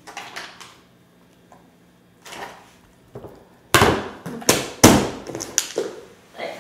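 A metal spoon knocking and scraping against a ceramic bowl as thick pepper paste is scooped into it, with a run of sharp knocks starting a little past halfway.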